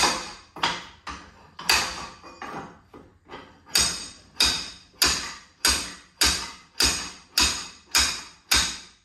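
Slide hammer hooked behind a rear wheel hub bearing, its weight slammed against the stop over and over. It gives a steady run of sharp metallic clanks, a little under two a second, each ringing briefly. The strikes grow louder and more even from about four seconds in, as the stuck bearing is being hammered out of the knuckle.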